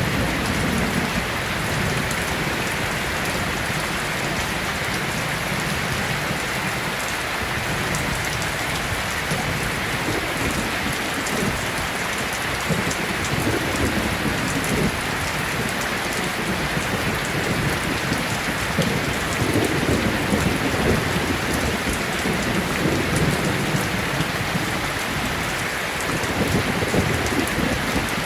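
Heavy rain pouring steadily on a metal roof, with low thunder rolling repeatedly, the rumbles swelling most in the second half.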